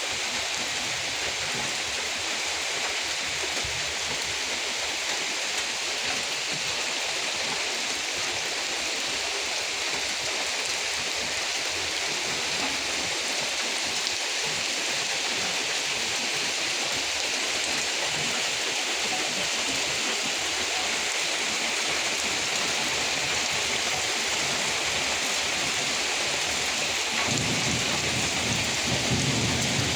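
Steady heavy rain falling and pattering on surfaces, an even hiss. Near the end a low rumble of thunder comes in under it.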